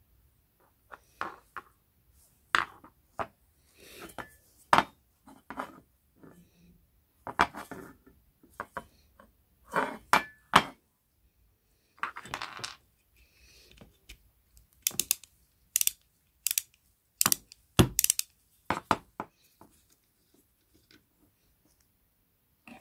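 Old metal curling-iron parts being handled and set down on a wooden table, giving scattered clinks and knocks. Past the middle come several sharp clicks as a ratchet wrench turns a fitting off the brass threaded rod.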